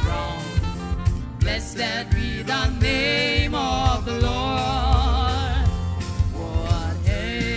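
Voices singing a gospel hymn over instrumental accompaniment with a steady percussive beat.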